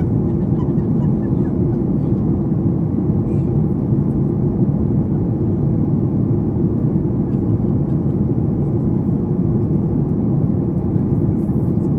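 Steady low rumble of a Boeing 737 MAX 8 cabin in descent, from its CFM LEAP-1B engines and the air rushing past the fuselage, heard inside the cabin at a window seat.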